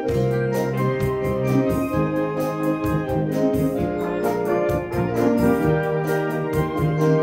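Symphonic wind band playing: held woodwind chords from flutes, clarinets and saxophones over a steady percussion beat.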